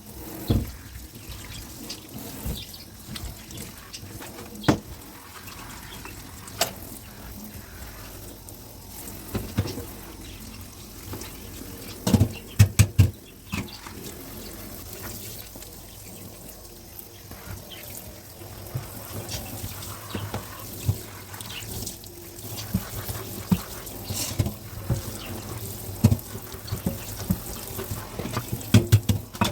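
Kitchen tap running into the sink while dishes are washed, with scattered knocks and clinks of dishes being handled, including a quick run of four knocks partway through and a cluster near the end.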